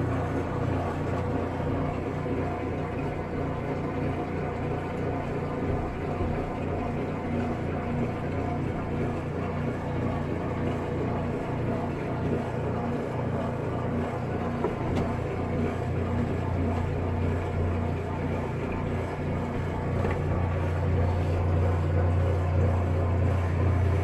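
Top-loading Kenmore washing machine running mid-cycle, its motor giving a steady low hum.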